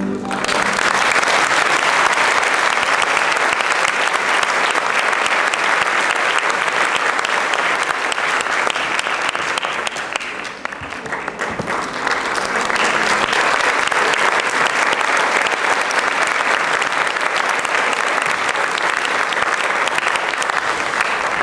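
Audience applauding, with a brief lull about halfway through before the clapping picks up again.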